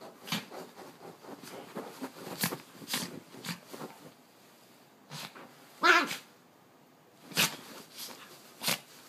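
A puppy tearing at a pillow: a string of short, sharp sounds from its breath and mouth along with rustling, and one louder pitched sound from the dog about six seconds in.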